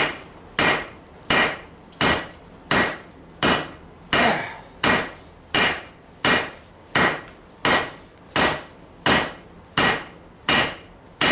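Steady hand-hammer blows on a workpiece on a Vulcan cast-iron anvil, about sixteen evenly paced strikes, roughly one every 0.7 seconds, each a sharp hit with a short ring. The smith is upsetting the sides of the piece back so they don't roll.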